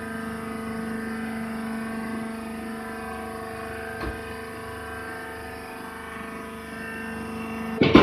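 Hydraulic baler's power unit, the electric motor and hydraulic pump, running with a steady multi-tone hum, with a single click about four seconds in. The hum breaks off near the end with a sharp knock.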